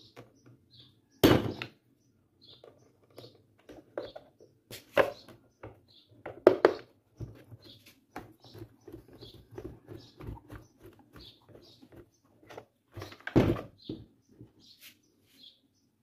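Handling noise from a disassembled electric fan motor and a screwdriver on a workbench: scattered knocks and clicks of metal and plastic parts, with loud knocks about a second in, twice around five and six seconds, and again near the end.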